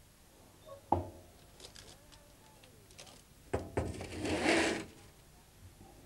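A click, then two clunks and a short scraping slide of metal as a tray of bread loaves is loaded into a commercial deck oven.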